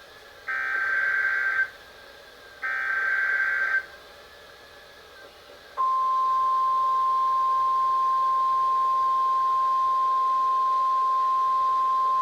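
NOAA Weather Radio emergency alert: two short bursts of screechy digital header tones, then about six seconds in the steady warning alarm tone starts and holds. This signals an alert being broadcast, here a severe thunderstorm warning.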